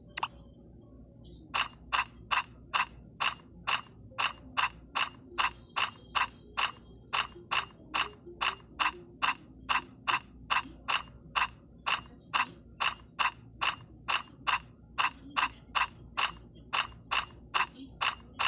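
Building-instructions app's step-change sound effect: a short, sharp click repeated about twice a second, once for each step as the instructions play through automatically.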